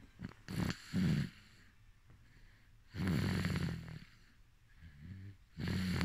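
A baby snoring in slow, uneven breaths. Two short snores come in the first second or so, a longer snore about three seconds in, a faint one near five seconds, and another starts just before the end.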